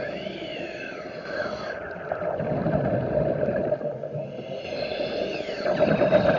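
A diver's breathing heard underwater: twice a wavering whine rises and falls, between stretches of rumbling bubbles, over a steady hum.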